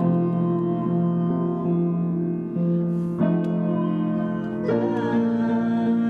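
Keyboard music: sustained chords held steadily, changing to a new chord about three seconds in and again near the end.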